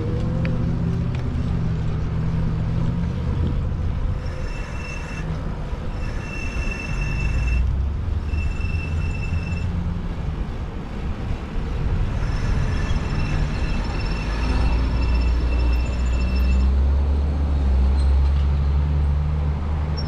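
Steady low rumble of road traffic, heavier in the second half. A thin, high-pitched whine comes and goes twice over it.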